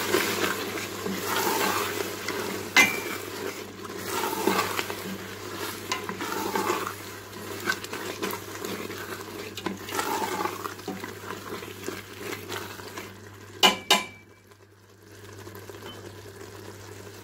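A spoon stirring and scraping minced beef and potatoes frying with yogurt in a metal pot, with a soft sizzle: the bhuna stage of cooking aloo qeema. The spoon knocks sharply against the pot about three seconds in and twice near the end, then the stirring stops.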